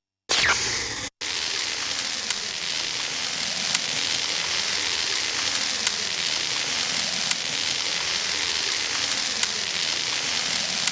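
Synthesized sound effect: a short zap that sweeps quickly downward in pitch and cuts off, then a steady crackling hiss, like sizzling, with faint scattered clicks.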